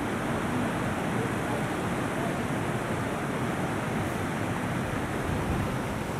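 Shallow river water flowing over pebbles and stones: a steady, even rushing.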